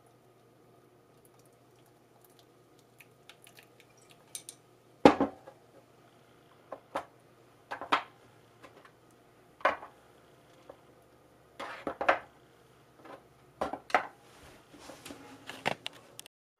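After a few seconds of quiet room tone, hard objects are handled and set down: a series of separate knocks and clatters at irregular intervals, the loudest about five seconds in.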